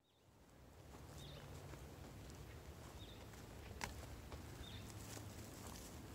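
Faint outdoor ambience: a bird gives a handful of short high chirps about a second apart, with a few light footsteps and clicks on dry ground as someone walks.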